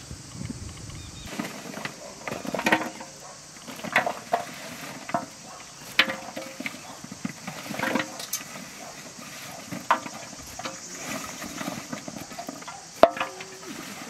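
Raw cauliflower florets and carrot pieces being handled and dropped into a large metal basin: irregular rustles and light knocks every second or two, with one sharper knock near the end.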